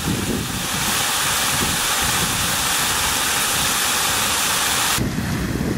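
Steady, loud hiss of a hose nozzle blasting a mist spray, over low wind buffeting on the microphone. The hiss cuts off suddenly about five seconds in, leaving only the wind rumble.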